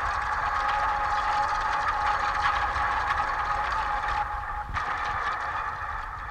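Droning experimental noise music: a dense, steady grinding wash with a held tone underneath, briefly breaking about four and a half seconds in.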